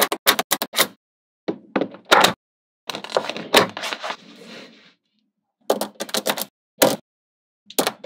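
Small magnetic balls clicking and snapping together in quick clusters of sharp clicks. The clusters are separated by stretches of complete silence, with a longer rattling patch from about three to four and a half seconds in.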